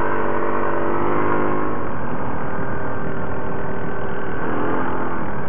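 Yamaha ATV engine running under way on Commander WS4 rubber tracks, a steady engine drone with a constant rushing noise beneath it. Its pitch shifts slightly with the throttle and dips and comes back up near the end.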